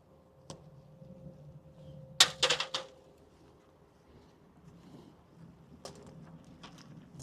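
Potatoes being picked out and dropped: a quick run of four or five sharp knocks about two seconds in, with a single tap before it and a few lighter taps near the end.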